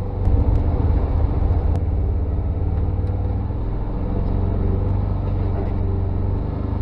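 Side-by-side UTV engine running steadily while driving a rough trail: a low drone with a few sharp clicks.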